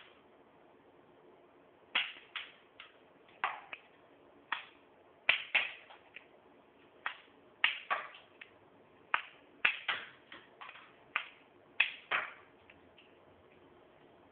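A Lego semi-automatic gun's plastic mechanism firing and clicking: about twenty sharp snaps in an irregular quick series, some in close pairs, from about two seconds in until near the end. A single click comes right at the start.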